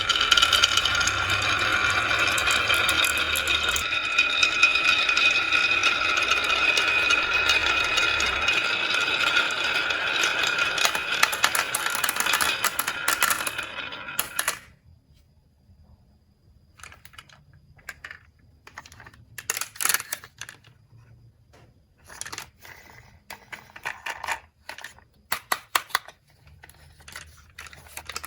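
Many marbles rolling and clattering down a HABA marble run: a dense, continuous rattle with ringing tones that stops suddenly about halfway through. After it, scattered separate clicks and clacks of marbles knocking together.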